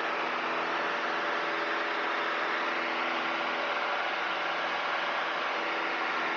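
Piper PA-28's piston engine and propeller running steadily, a constant drone heard inside the cabin.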